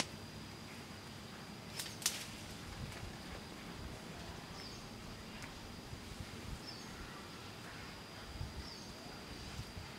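Rustling of someone pushing through dense undergrowth, with two sharp snaps about two seconds in, over a steady high insect drone and a few short bird chirps.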